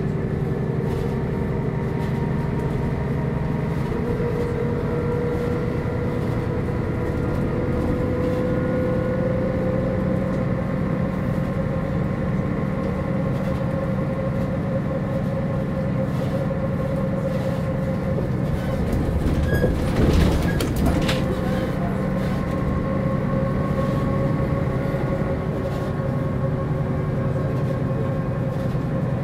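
MAN NG 262 articulated bus's diesel engine and transmission running under way, heard from on board: a steady drone with a whine that steps up about four seconds in and then rises slowly as the bus picks up speed. A brief rattling clatter sounds about twenty seconds in.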